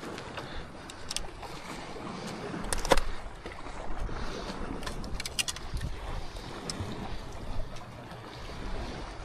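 Wind buffeting the microphone over water lapping at a boat, with several sharp clicks and knocks, the loudest about three seconds in.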